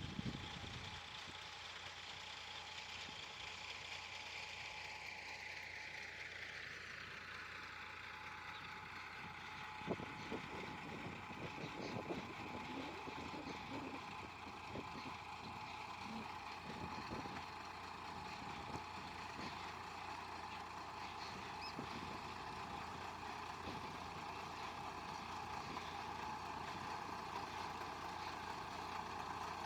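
Tractor engine running steadily under load, a whine in it dropping in pitch between about four and seven seconds in and then holding; scattered knocks and rattles through the middle.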